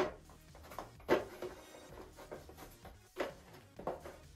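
Thin plastic cowl being handled and pressed against a balsa fuselage: a few soft knocks and rustles, about four of them.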